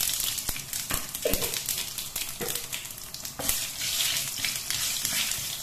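Cumin seeds and whole spices sizzling and crackling in hot mustard oil in a kadai, stirred with a wooden spatula: the tempering stage of a curry before onions are added.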